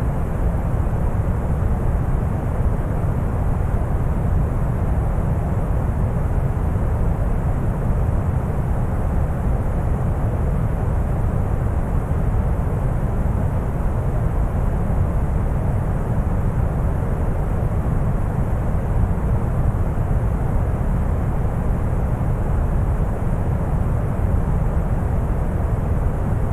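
Synthetic deep brown noise: a steady, even rumble with most of its weight in the low end and a thinner hiss above, unchanging throughout.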